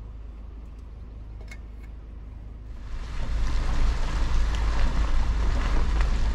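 A vehicle's low steady hum. About three seconds in, loud wind buffets the microphone with a deep rumble.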